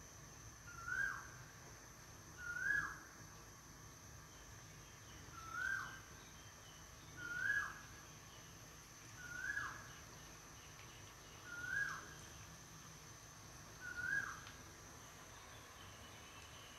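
A bird calling seven times, about every two seconds: each call a short note that swoops up and then drops. A faint steady hiss runs underneath.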